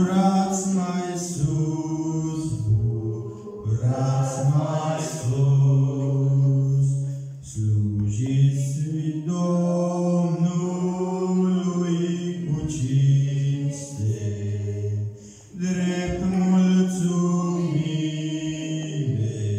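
A man singing a Romanian hymn solo into a microphone, in long held notes with short breaks between phrases about 7.5 and 15.5 seconds in.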